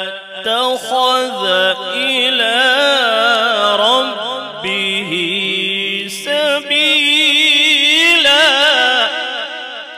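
A male qari reciting the Qur'an in the melodic mujawwad style, amplified through a microphone: one voice holding long, wavering, ornamented notes, fading out near the end.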